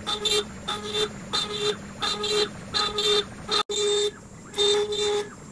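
Stepcraft CNC router carving an inlay pocket in a wooden cutting board: the axis stepper motors whine at one pitch in short bursts, about two a second, as the gantry moves and stops, over the steady hum of the spindle. The sound drops out briefly about two-thirds of the way through.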